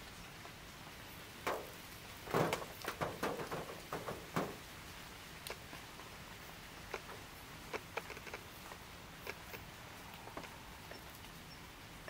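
Irregular light knocks and clicks over a faint steady hiss: a dense run from about one and a half to four and a half seconds in, then scattered single taps.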